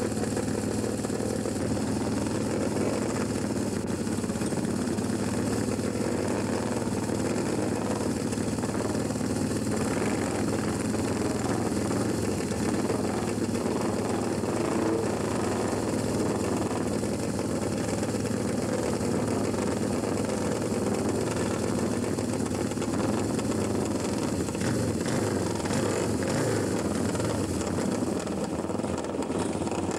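Several classic motorcycle engines idling steadily together, waiting to start.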